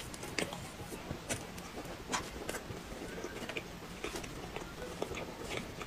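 Close-up eating sounds: scattered soft clicks and smacks of chewing a mouthful of chocolate cake, with a spoon scooping cake from a paper cake box.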